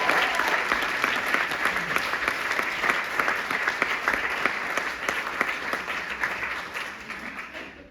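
Theatre audience applauding, dying down near the end.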